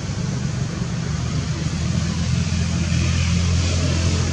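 A steady, low engine rumble, like a motor vehicle running, over a constant hiss of outdoor noise.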